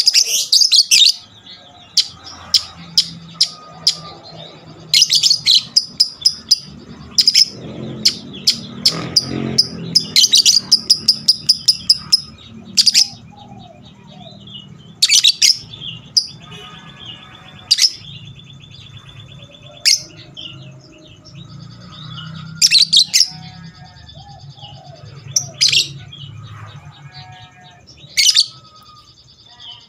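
Lovebird giving loud, shrill, high-pitched calls: dense runs of rapid chatter (the long 'ngekek' song) about five and ten seconds in, then single sharp shrieks spaced a second or two apart.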